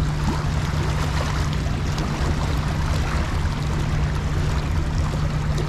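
Fast river current rushing and churning close to the microphone, a steady even wash of water noise, with a constant low hum underneath.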